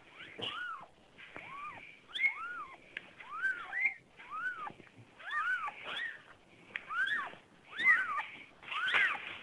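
Newborn kittens mewing: a steady run of short, high squeaky mews, each rising and falling in pitch, coming more than once a second, at times two overlapping.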